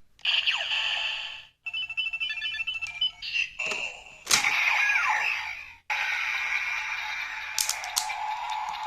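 Electronic sound effects from a toy Kamen Rider Wizard Ridewatch in a Kamen Rider transformation belt driver. A few short chiming bursts and a run of beeps are followed, about six seconds in, by a steady, rhythmic electronic standby loop.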